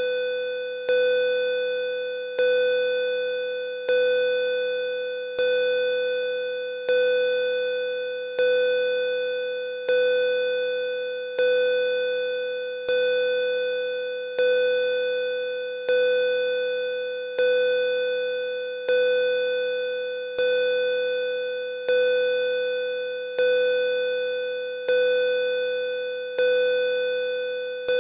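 Bell-like chime struck about every one and a half seconds, each ring fading slowly into the next strike. One clear tone with several higher tones ringing above it.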